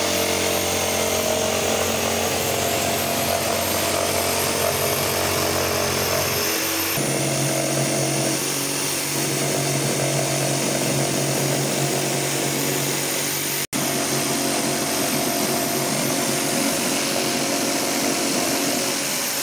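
Hitachi Koki electric jigsaw running steadily as it cuts through a large wood panel along a traced line, its tone shifting about a third of the way in. A momentary break comes about two thirds of the way through.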